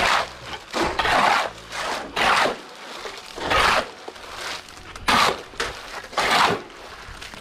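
Shovel scraping through and turning a heap of wet concrete mix with gravel on the ground: six rasping strokes, roughly one a second.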